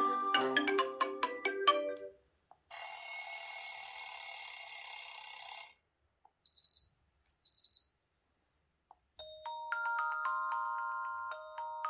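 Xiaomi 11 Ultra ringtones playing in turn: a busy melodic tune ends about two seconds in, then a steady buzzy tone sounds for about three seconds, followed by two short high beeps. After a pause, a new chiming melody starts near the end.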